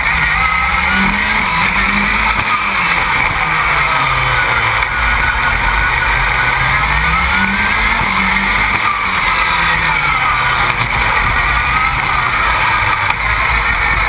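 Onboard a 1.8 turbo four-wheel-drive rallycross buggy at race pace: the engine is under hard load, its revs climbing and dropping in long swells about three times as it accelerates and lifts for corners, over a constant rush of wind and road noise.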